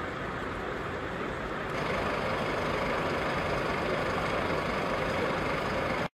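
Steady vehicle engine and road noise, a continuous rumble with hiss. It steps up louder about two seconds in and cuts off abruptly near the end.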